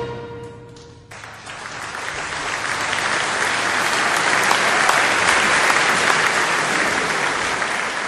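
The last note of a wind band's closing chord dying away, then audience applause that breaks out about a second in and swells.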